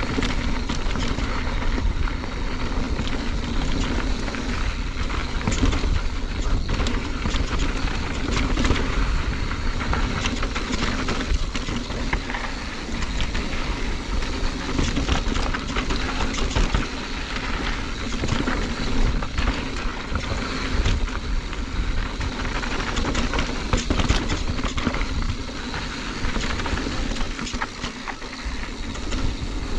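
Mountain bike descending a dusty dirt and rock trail at speed: tyres rolling over gravel in a steady rush of noise, with frequent rattles and knocks from the bike over bumps and rocks, and wind buffeting the microphone.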